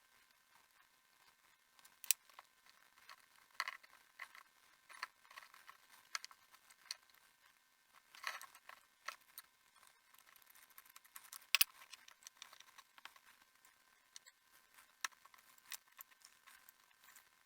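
Faint, scattered small clicks and light scrapes of hand work on a metal HO scale model locomotive being taken apart, with a sharper click about halfway through.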